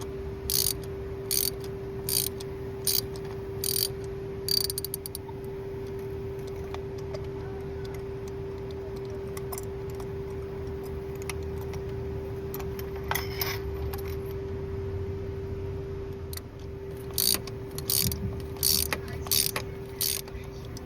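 Hand ratchet with an extension and a 5/8 spark plug socket clicking in short bursts as spark plugs are backed out: a quick run of strokes at the start, a lull, then more strokes near the end. A steady low hum sits underneath.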